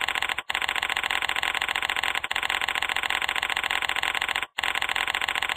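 Chalk scratching on a blackboard as handwritten text is drawn out: a fast, continuous scratching, broken by short pauses about half a second in, briefly near the middle, and again past four seconds in as each line ends.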